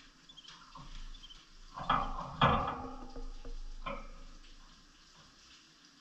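Small cage birds: faint high chirps, then a cluster of short, sharp sounds from birds calling or moving in the cage, the loudest about two and a half seconds in.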